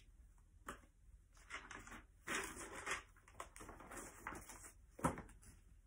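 Quiet room with faint rustling and a few soft, short clicks, the sharpest about five seconds in.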